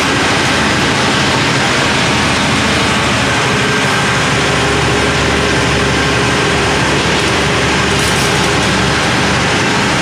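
Mercedes-Benz OF 1318 bus's diesel engine running steadily at a constant loud level, with a faint steady whine coming in about four seconds in.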